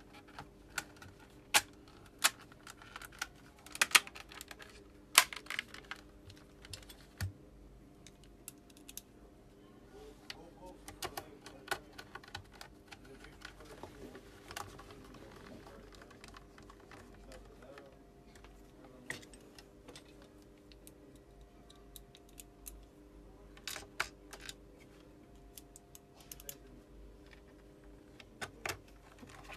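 Irregular sharp clicks and snaps of a car display unit's black plastic housing and clips being pried and handled while it is taken apart. The clicks come thickest in the first few seconds and again near the end, over a faint steady hum.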